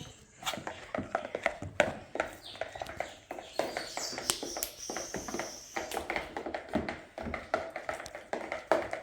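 Slime being squeezed and poked by hand, giving a fast, irregular run of small sticky clicks and pops.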